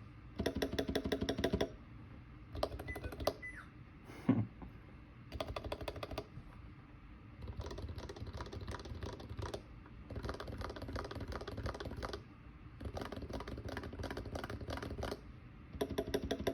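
Bursts of fast typing on a Topre keyboard with lubed sliders and Hipro keycaps, in seven runs of rapid keystrokes with short pauses between them. There is a single brief low thud about four seconds in.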